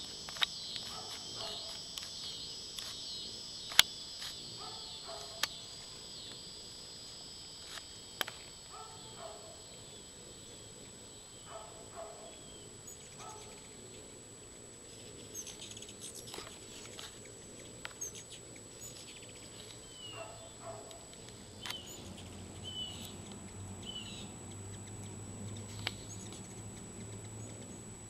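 Hummingbirds at a feeder giving faint, short high chirps, scattered mostly through the second half. Sharp clicks, the loudest about four seconds in, and a thin steady high whine run underneath.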